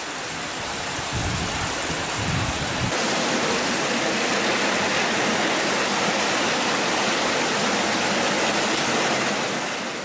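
Heavy typhoon rain pouring down in a loud, steady, dense hiss, with water running off a roof edge. A low rumble lies under the rain for the first three seconds.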